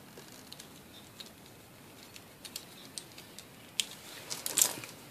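Scattered light clicks and taps of small metal parts being handled while a light fixture is dismantled for scrap, a few more bunched together near the end.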